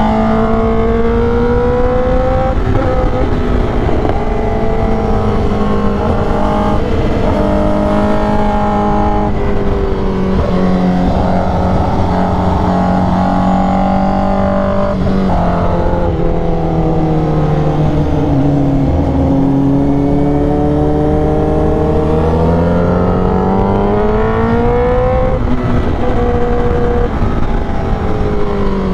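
Honda CBR1000RR-R Fireblade SP's inline-four engine, breathing through an SC Project exhaust with the catalytic converter deleted, running hard through a series of bends. The revs rise and fall with the throttle, with several sudden drops in pitch at gear changes.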